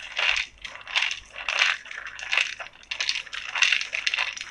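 Raw peanuts, dampened with a spoonful of water, being stirred and turned over by hand in a shallow dish. They clatter against each other and the dish in repeated bursts about one and a half times a second.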